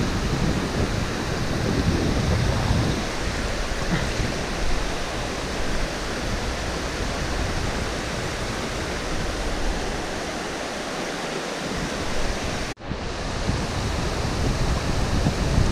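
Steady rush of the Garona river's flowing water, with low wind rumble on the microphone during the first few seconds. The sound drops out for an instant about thirteen seconds in.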